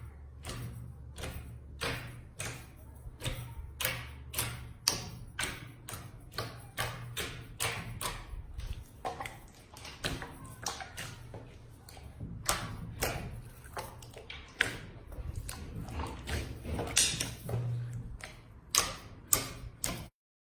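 Slime being squeezed and poked, giving an uneven run of sharp clicks and pops, about two or three a second, over a low steady hum. The sound cuts off abruptly near the end.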